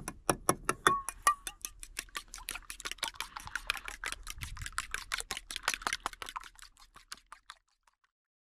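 A metal fork beating eggs in an enamelware bowl: fast, even clinks of fork on bowl, about six a second, thinning out and stopping shortly before the end.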